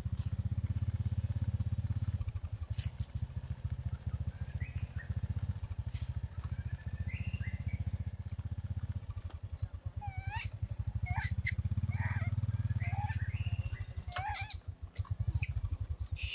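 Small step-through motorbike engine putt-putting at low speed, its beat picking up and easing off a few times. Short high chirps and squeaks come over it now and then, most of them in the second half.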